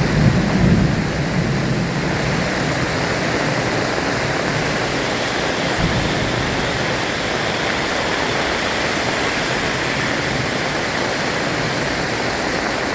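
Heavy rain falling steadily, a dense even hiss. A low thunder rumble dies away in the first second or two.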